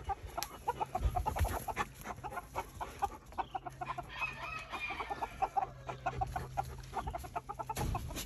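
Silkie chickens clucking, a quick, continuous run of short clucks, with a longer, higher-pitched call about four seconds in.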